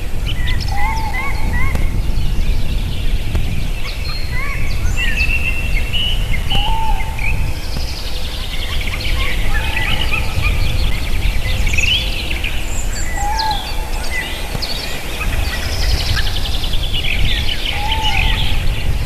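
Several wild birds calling at once: many short chirps, trills and rising and falling whistles, with a lower short call repeated about every six seconds, over a steady low rumble.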